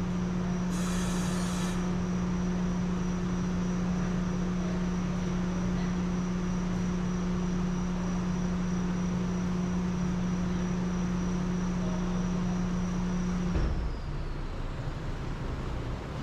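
An electric motor running steadily with a high whine, with a short hiss about a second in; it is switched off about 13 seconds in and its whine winds down.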